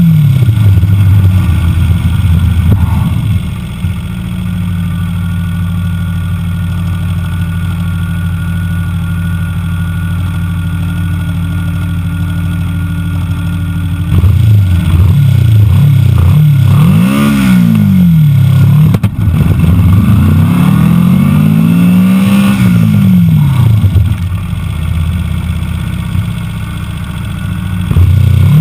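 Engine of a small open-wheel formula-style car, heard on board. It runs at a steady pitch for the first half, easing off a little a few seconds in, then after a cut about halfway it revs up and down again and again, its pitch rising and falling in long sweeps.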